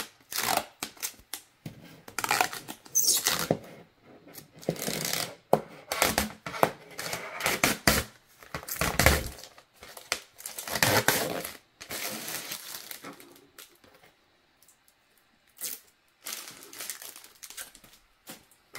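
Protective film being peeled off a plastic laptop screen-protector sheet, the plastic crinkling and rustling in irregular bursts. The rustling dies down about two-thirds of the way in, with a couple of short rustles near the end.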